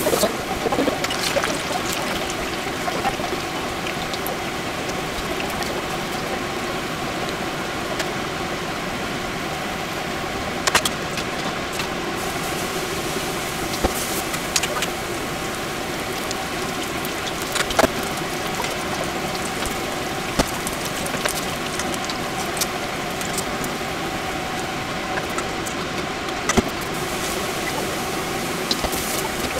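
Tempura frying in a pot of deep oil: a steady, dense sizzle and crackle of batter in the hot oil, with a few sharp pops.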